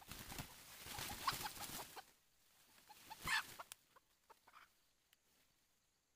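Undergrowth rustling as someone pushes through leaves and steps in, then a wild chicken held in a trap calls: one louder squawk a little past the middle, followed by a few short clucks.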